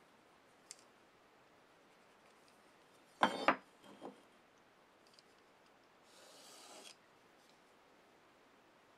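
A metal speed square knocks and clatters against plywood as it is repositioned, about three seconds in, with a smaller knock just after. A few seconds later a carpenter's pencil scratches a short line along the square's edge.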